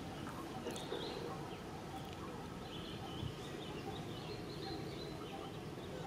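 Steady outdoor background noise with faint, short high-pitched animal calls, a few of them clustered around the middle.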